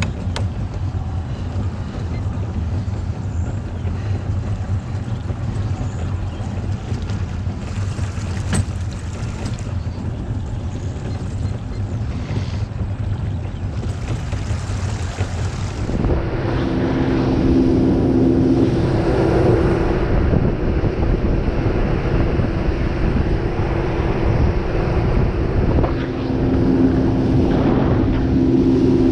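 Motorboat engine running steadily as the boat gets under way, growing louder with a higher note about sixteen seconds in, with wind buffeting the microphone.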